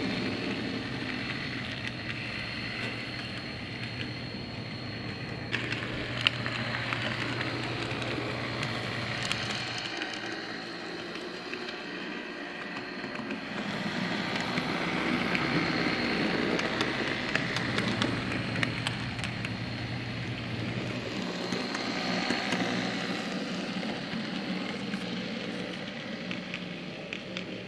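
HO scale PCC streetcar model (Bowser) running on its track: its small electric motor hums steadily and its wheels rattle and click on the rails, fading somewhat and then growing louder about halfway through.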